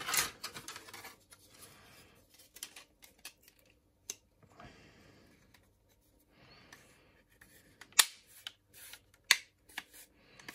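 Plastic model-kit parts rustling and scraping against each other in a cardboard box as the fuselage halves are lifted out, then a few sharp plastic clicks as the halves are handled and fitted together, the two loudest about eight and nine seconds in.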